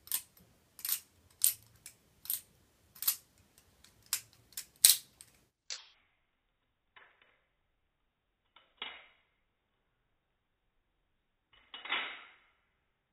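Butterfly knife (balisong) being flipped: its handles and blade clack against each other in a quick series of sharp metallic clicks for the first five seconds or so, then a few slower, duller clacks spaced a second or more apart.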